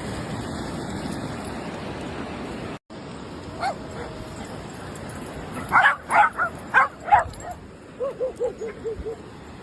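Steady rush of surf noise, then after a cut a dog gives about five loud, sharp barks in quick succession, followed by a quick run of about six short, high yips.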